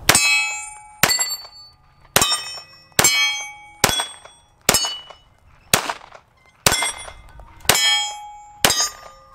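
Lone Wolf Arms LTD19 9mm pistol fired ten times in steady slow fire, about one shot a second, each shot followed by the ringing clang of a steel plate target being hit.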